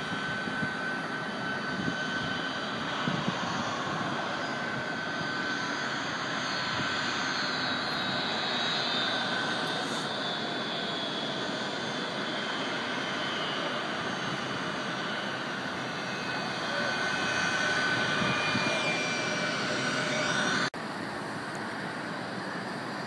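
Boeing 757-200's jet engines running at taxi power: a steady rush of engine noise with a held whine and higher tones that slowly fall. Near the end the sound drops out for an instant and returns a little quieter.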